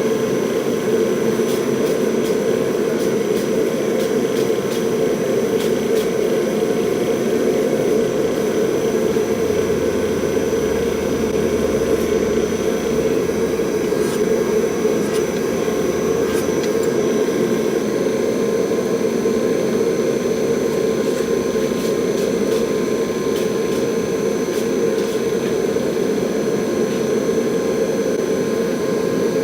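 Loud, steady roar of a shop machine running continuously, with a faint high steady whine and scattered light ticks over it.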